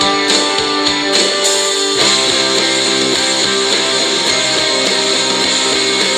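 Background music: a guitar-led song with strummed guitars. The bass and a fuller band come in about two seconds in.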